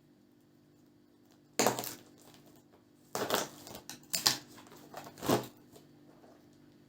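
Plastic cookie wrapper crinkling and tearing open in four short bursts.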